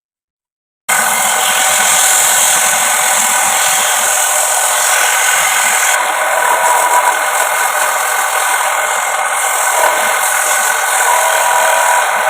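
Homemade wood lathe running steadily, spinning a wooden plate blank as it is worked, with a continuous machine whir and hiss. It starts abruptly after about a second of silence.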